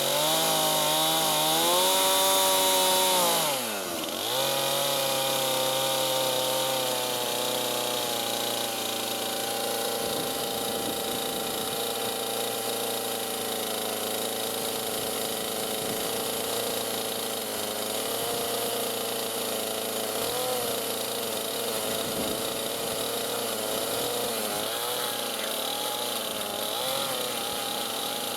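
Chainsaw running hard while cutting a log to a scribe line. Its engine pitch drops sharply and briefly about four seconds in, then holds mostly steady with small wavers.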